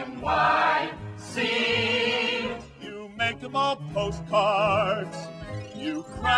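Stage-musical song: singing voices with a wide vibrato over instrumental accompaniment, with a few sharp percussive hits about three seconds in.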